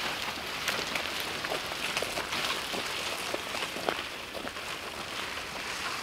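Brushy tree branches dragged over a gravel driveway: a continuous crackling scrape of twigs and stones, full of small clicks.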